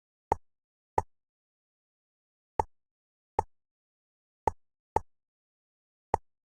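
A series of seven short, sharp clicks at uneven intervals, with dead silence between them.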